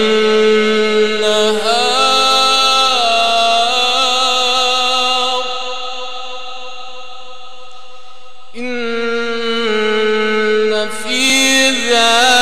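A male reciter chanting the Quran in the melodic, drawn-out mujawwad style into a microphone, holding long ornamented notes. One long note tapers quieter around the middle, and a new phrase starts about eight and a half seconds in.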